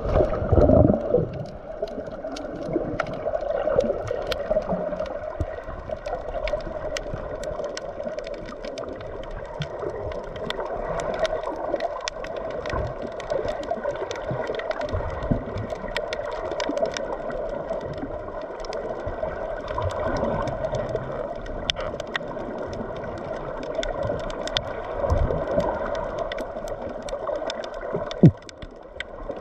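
Water gurgling and sloshing against the camera, with a steady muffled hum, scattered sharp clicks, and one loud knock near the end.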